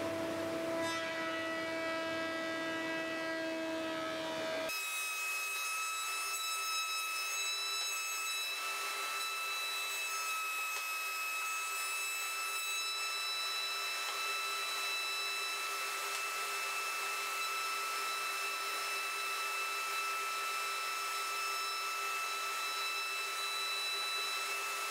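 SCM planer-thicknesser running with its dust extractor, planing a board as it feeds through: a steady machine whine. About five seconds in, the pitch of the whine shifts abruptly and stays steady.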